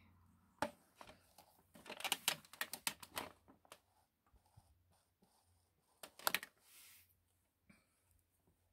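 Faint scattered clicks and rustles of a hair straightener being handled and run through synthetic doll hair, busiest two to three seconds in.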